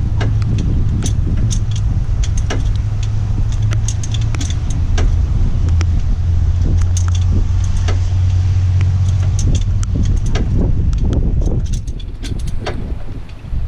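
Metallic clicks and clanks from a long ratchet bar as a Cummins diesel engine is turned over by hand toward top dead centre, over a steady low hum that drops away near the end.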